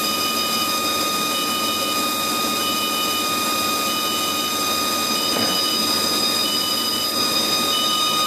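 The spindle of a Haas TL-3 CNC lathe is running steadily with a high layered whine, spinning an aluminium part while a hand-held abrasive pad rubs against it to polish it. A high beep pulses on and off about every second and a quarter throughout.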